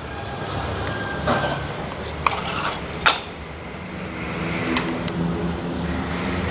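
A lit butane cassette gas stove's burner gives a steady rush, with a few sharp metal clinks in the first three seconds as a stainless kettle and its lid are set down. After that a plastic water bottle's cap crackles as it is twisted, and background music with steady tones comes in about four seconds in.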